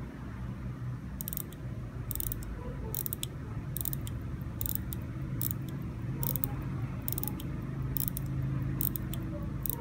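Crown of a reverse-running Molnija mechanical pocket watch being hand-wound: the winding ratchet clicks in short bursts about once every 0.8 seconds, over a faint steady low hum.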